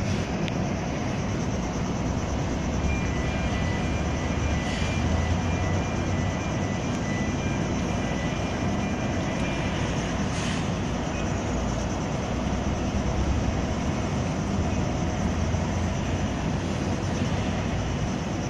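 Steady low rumble of a boat's engine, with wind on the microphone.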